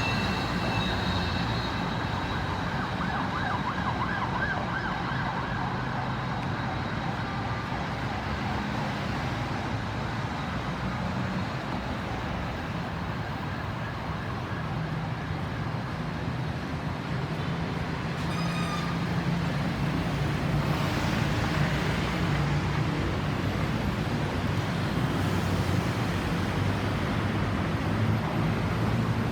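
Ambulance siren sounding amid road traffic, with a wavering tone in the first few seconds over a steady hum of engines.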